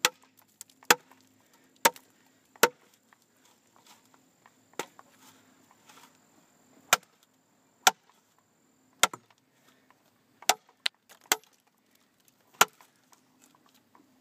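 A large handmade camp knife with a 13-inch ATS-34 steel blade chopping into a heavy log: about a dozen sharp chops, mostly about a second apart, with a lull of a few seconds in the middle.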